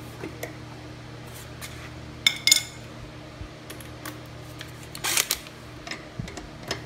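Hand tools working on a lawnmower's blade bolt: two ringing metal clinks about two seconds in, then short scraping rattles around five seconds in and again near the end as the bolt is turned loose, over a steady low hum.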